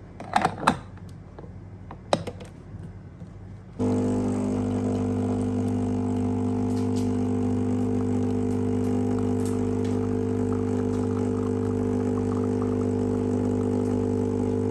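A few clicks and knocks, then an electric appliance's motor switched on about four seconds in, humming loudly and steadily until it cuts off suddenly at the end.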